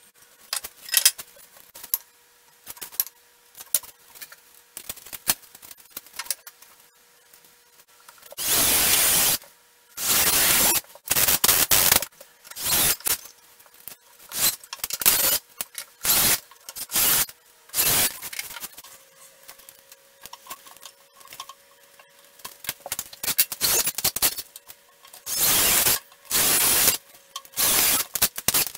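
Cordless drill/driver running in short bursts as it drives screws into a softwood bench frame. For the first several seconds there are only scattered clicks and knocks of handling; from about a third of the way in the driver runs again and again, the longest burst about a second.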